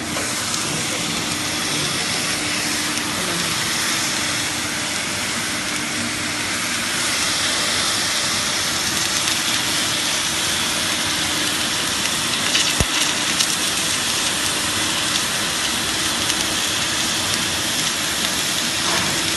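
Submerged arc welding rig running along a tank's outside longitudinal seam with its flux feeding and flux recovery system working: a steady hiss with a faint low hum underneath. A single sharp click about two-thirds of the way through.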